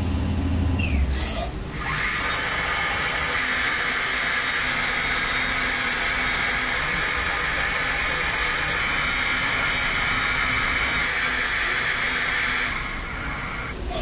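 Tornos GT32 Swiss-type CNC lathe machining a brass part. A low machine hum runs for the first couple of seconds, then after a brief break a steady high hiss of the cut holds for about ten seconds and eases off near the end.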